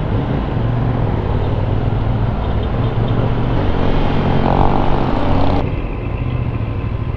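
CFMOTO 450NK parallel-twin engine running on its stock exhaust while riding in traffic, with wind and road rush over the microphone. The rush eases about five and a half seconds in.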